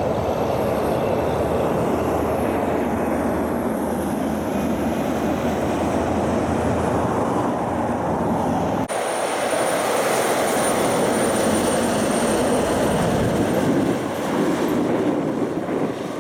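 Heavy trucks with trailers driving on a highway: steady engine and tyre noise, broken by an abrupt cut about nine seconds in, after which a second truck approaches.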